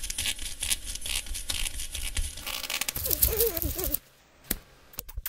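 Cartoon sound effects: a crackling, scratchy noise, then a brief wavering warble about three seconds in, then a few sharp clicks near the end.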